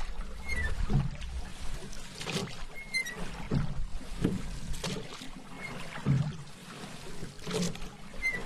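Paddle strokes in water: a paddle dipping, pulling and lifting out with small splashes, repeating every second or so.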